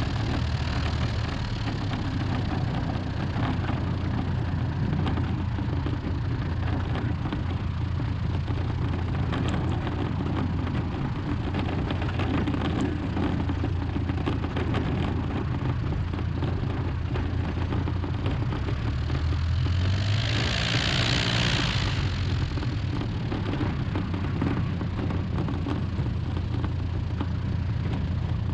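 Light single-engine aircraft's piston engine and propeller running steadily, with a steady low drone. A short rush of louder, hissing noise comes about twenty seconds in.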